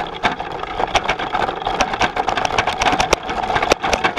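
Bullitt cargo bike rattling and clattering as it rolls over a rough dirt trail, with many sharp knocks from the frame and cargo box over bumps above a steady rush of tyre and wind noise.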